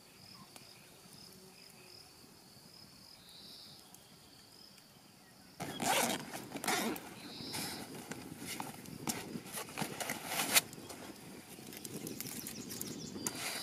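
Faint high chirping over quiet outdoor ambience. Then, about five and a half seconds in, loud rustling and clicking of a fabric backpack being handled as its straps are unfastened and a rolled foam sleeping mat is pulled free, with one sharp click near the end.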